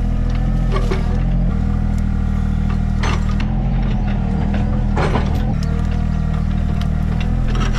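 Mini excavator's diesel engine running steadily under work, with several sharp clanks from the chained pipe attachment being dragged to smooth the ditch.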